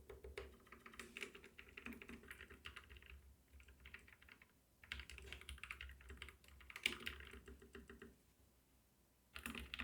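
Typing on a Keychron K9 Pro low-profile keyboard with lubed brown tactile switches: runs of soft, muted key clicks with short pauses, very quiet.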